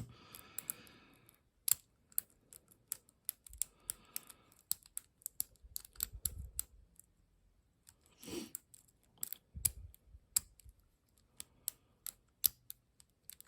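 Lock pick and tension wrench working the spool pins of a Ruko ASSA Abloy lock: irregular light metallic clicks and ticks, with a few short soft scraping passages.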